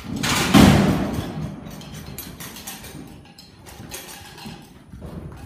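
A bucking bull's hooves pounding and scuffling in loose arena dirt as it bucks, with a loud crash about half a second in, followed by irregular thuds.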